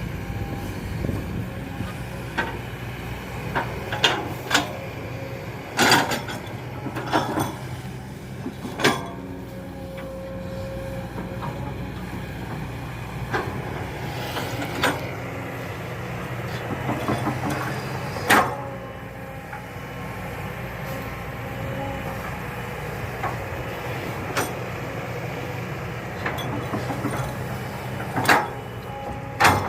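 Excavator diesel engine running steadily, with sharp metallic clanks and knocks at irregular intervals, the loudest about six and eighteen seconds in.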